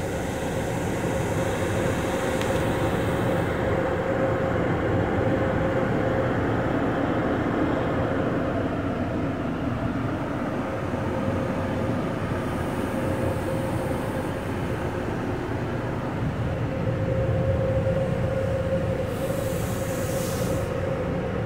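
Truck wash machinery and water spray running: a steady rumble under a constant hum, with hissing spray swelling briefly near the start, about two-thirds of the way in, and near the end.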